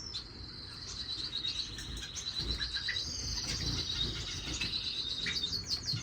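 Small finches in an aviary calling: a continuous high, rapid trill. Near the end it turns into quick, repeated downward-sweeping chirps.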